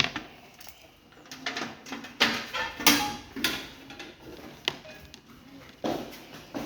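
A series of irregular knocks and clicks, like hard objects being handled and set down, about six sharp ones spread across a few seconds.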